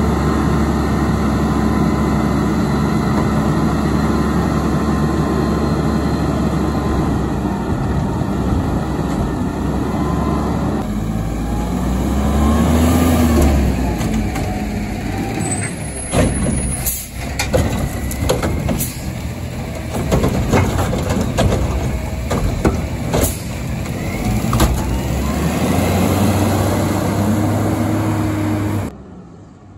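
Autocar ACX refuse truck with a McNeilus Meridian front-loader body working a recycling route. The engine runs hard to drive the hydraulics, with a steady whine that rises and falls as the arms lift and lower the container. A run of sharp clanks and knocks from the container and body comes partway through.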